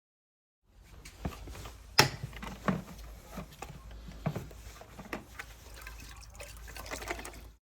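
Water splashing and dripping with irregular knocks and clicks over a low rumble; the sharpest knock comes about two seconds in.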